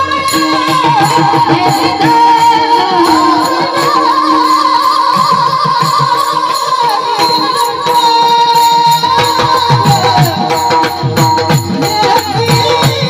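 Marathi devotional panchpadi song: a sung melody over a steady rhythm of drum strokes and bright percussion ticks.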